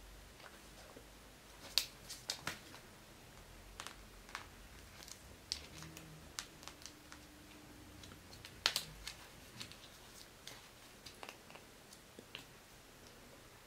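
A cat biting and gnawing on a hard plastic stick: irregular sharp clicks of teeth on plastic, with two louder clacks, one about two seconds in and one just past the middle.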